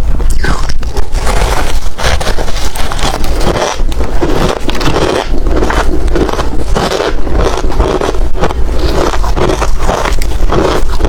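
A person chewing hard ice close to the microphone: dense, irregular crunching and cracking as the ice breaks between the teeth.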